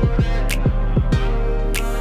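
Background music with a steady beat: deep kick drums and sharp hits over held chords.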